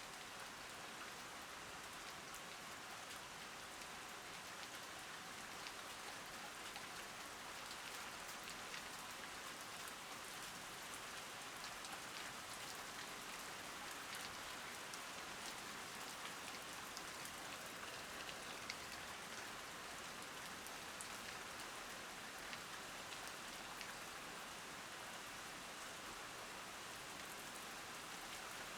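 Steady rain falling on leaves and surfaces: an even hiss with scattered sharp ticks of single drops.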